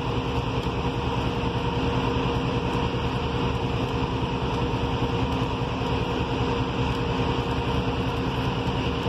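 Steady machinery hum, like an engine idling, over the crackle of steel beams being arc-welded.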